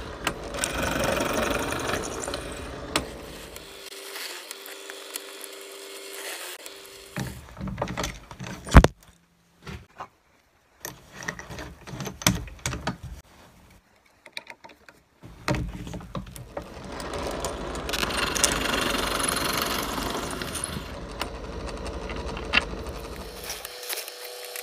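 Power drill boring through a wooden floor board, opening an existing pilot hole out to the diameter of the bolt threads. The drilling stops about 4 seconds in; after a spell of handling clicks with one sharp loud knock, it starts again about 15 seconds in and runs on.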